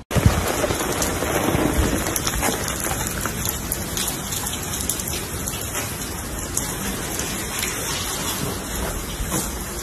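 Rain falling steadily: a dense, even hiss.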